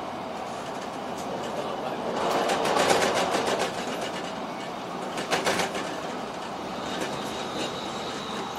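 Inside the cabin of the Limited Express Sonic, an electric express train running at speed: a steady rumble of wheels on rail with clickety-clack. It swells louder about two seconds in, and a quick run of clacks comes about five seconds in.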